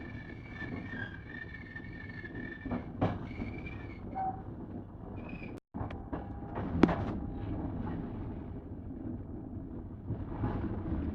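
Passenger train rolling slowly as it arrives at a station, with a high squeal from the wheels over the first few seconds. The carriage rumbles under sharp metallic clanks, the loudest about two-thirds of the way in. The sound cuts out for an instant a little past halfway.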